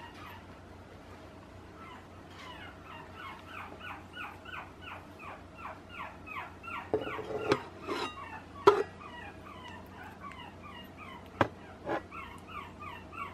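A month-old puppy whimpering steadily in a quick string of short, high, falling squeaks, about three a second. A few sharp knocks break in, the loudest about two-thirds of the way through.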